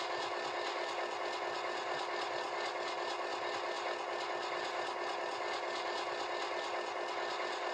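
Simulated diesel engine idling steadily, played by the ESU LokSound sound decoder of a Murphy Models class 121 model locomotive through its small onboard speaker.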